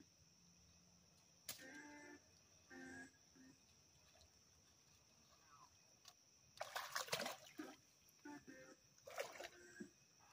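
Water splashing and sloshing as a person wades among submerged tree limbs, in a few bursts over the second half, the loudest about two-thirds of the way through.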